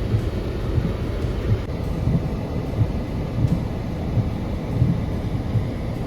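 Car driving in the rain, heard from inside: a steady low rumble of road and tyre noise on the wet road, with irregular low thumps.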